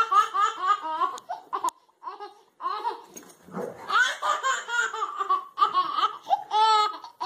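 A baby laughing hard in runs of quick, high-pitched giggles, with a short pause about two seconds in and a high squeal near the end.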